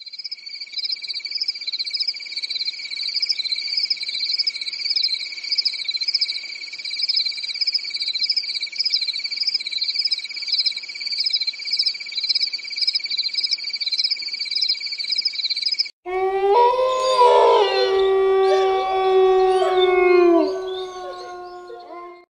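Electronic intro sound effects. A steady high tone with a warbling higher tone above it runs for about sixteen seconds and cuts off suddenly. Then comes a burst of layered tones with sliding pitches, held for a few seconds before they drop in pitch and fade away.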